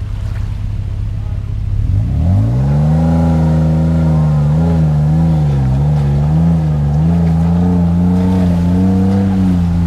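Off-road vehicle engine running low, then revving up sharply about two seconds in and held at high revs under load, its pitch wavering up and down, as when a vehicle powers through a river crossing.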